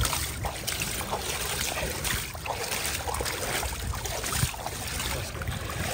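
Water lapping and splashing, with wind on the microphone giving a steady low rumble.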